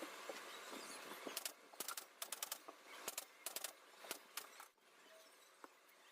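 A steady hiss, then a run of sharp clicks and taps, several in quick succession, from about a second and a half in until they stop around four and a half seconds.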